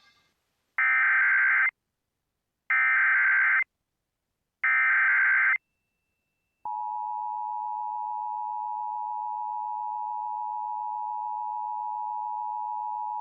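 Emergency Alert System SAME header: three one-second bursts of screechy digital data, about two seconds apart, then a steady EAS attention tone starting just before halfway through. This marks the start of an EAS test alert.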